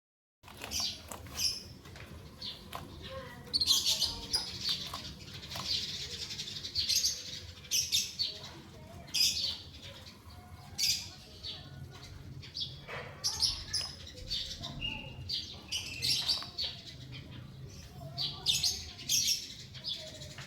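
Caged canary and white-headed munia making short, high chirps and calls that come irregularly, several every couple of seconds.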